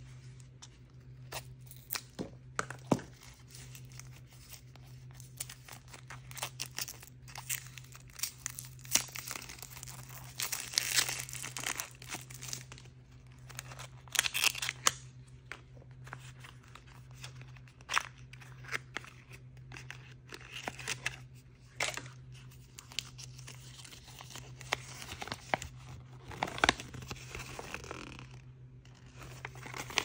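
Toy blind-bag packaging being torn open and crinkled by hand, in several longer bursts, with scattered sharp clicks and taps from handling the packages. A steady low hum runs underneath.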